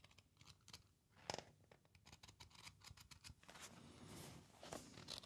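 Faint handling of a small paper booklet: light rustling and ticking of the paper, with one sharper click about a second in.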